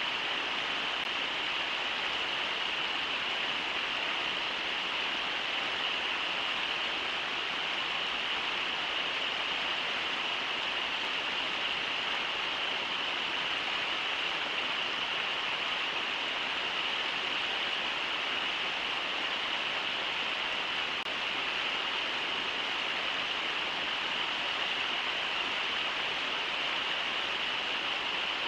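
River water rushing steadily over shallow riffles.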